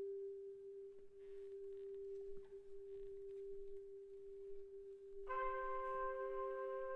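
Quiet sinfonietta music: one almost pure tone held steadily throughout. About five seconds in, a second instrument enters on a higher held note with many overtones.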